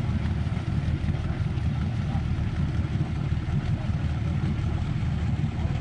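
A party fishing boat's engine idling steadily at the dock: a low rumble with a fast, even pulse.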